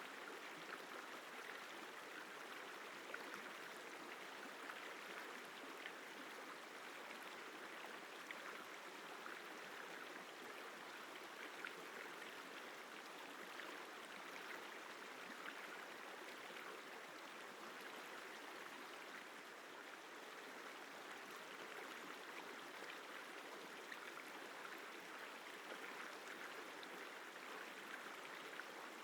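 Isar River flowing: a soft, steady rush of running water with no change throughout.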